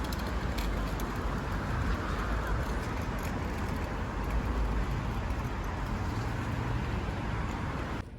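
Steady road noise: a low rumble with an even hiss, running without a break and cut off sharply near the end.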